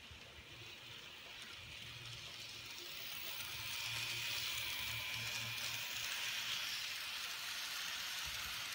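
N-scale model train (Kato Southern Pacific 4449 locomotive with lit passenger cars) running on its track: a steady hiss of wheels on rail over a low motor hum. It grows louder over the first four seconds as the train comes close, then stays level.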